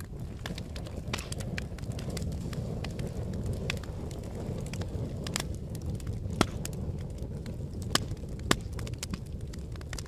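Wood campfire burning: a steady low rush of flame with frequent sharp crackles and pops, three louder pops in the second half.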